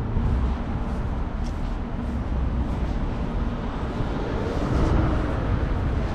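TTC subway train running: a steady low rumble that swells a little about two-thirds of the way through.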